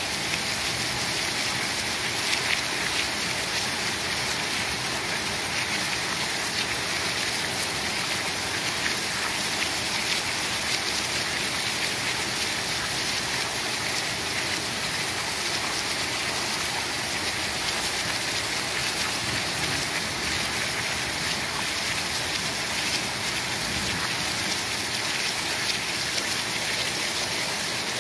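Heavy rain pouring steadily: a dense, even hiss of falling water with no thunder.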